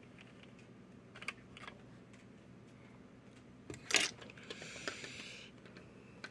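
Small clicks and taps of a diecast model truck being handled, with a sharper click about four seconds in followed by about a second of scraping.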